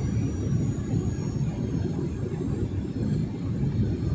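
Cabin noise inside a Boeing 737-900ER descending to land: a steady low rumble from its CFM56-7B turbofan engines and the airflow past the fuselage.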